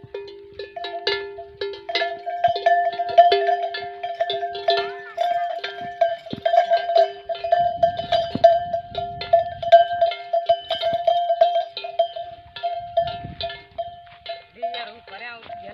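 Metal bell hung at a camel's neck clanking irregularly as the camel walks and browses, each strike ringing on at two steady pitches.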